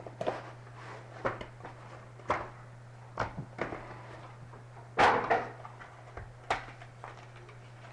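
Hands opening and handling a cardboard box of 2014 Absolute Football trading-card packs: a string of knocks and taps, the loudest a half-second rustling scrape about five seconds in. A steady low hum runs underneath.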